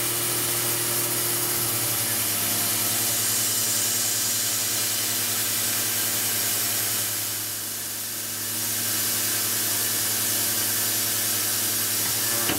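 CNC mill spindle running a 1/8-inch carbide end mill along a slot in 304 stainless steel, with steady spindle tones under a constant hiss of fogbuster mist coolant blown at about 17 PSI. It goes briefly quieter about seven to eight seconds in.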